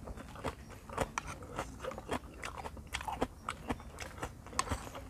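A person chewing raw beef liver close to the microphone: irregular mouth clicks several times a second.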